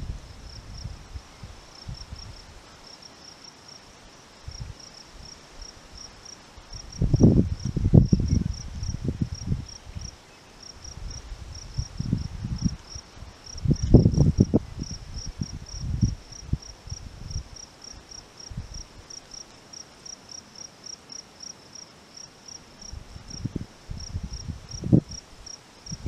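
An insect chirping steadily in a high, even pulse, about three chirps a second. Gusts of wind hit the microphone with low buffeting, loudest about 7 and 14 seconds in.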